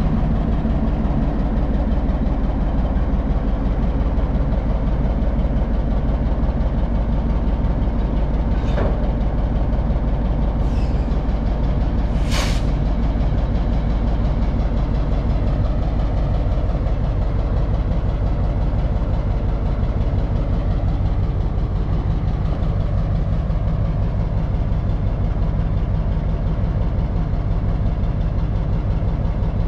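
Diesel switcher locomotive's engine running steadily close by as it moves slowly with its cars; the engine note shifts about twenty seconds in. Three brief sharp higher sounds come around nine to twelve seconds in, the last the loudest.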